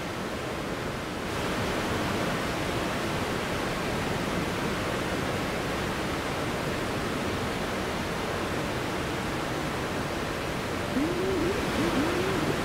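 Ambient electronic soundscape: a steady rushing noise that turns brighter about a second in. Near the end a wavering tone rises and falls in pitch several times.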